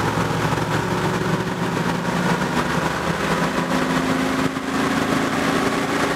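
Car engine at full throttle against a chassis dyno's load, which lets it pull only slowly from about 30-odd to the mid-40s mph; its pitch rises gradually as the speed climbs. Heard from inside the car's cabin.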